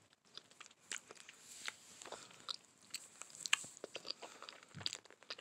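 Mouth sounds of someone eating a small hard candy: faint, irregular clicks and smacks as it is chewed and moved against the teeth.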